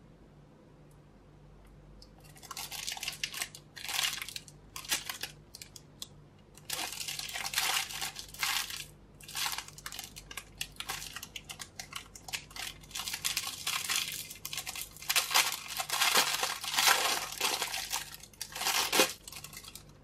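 Thin clear plastic bag crinkling and tearing in irregular bursts, starting about two seconds in, as it is handled and opened to free a squishy toy.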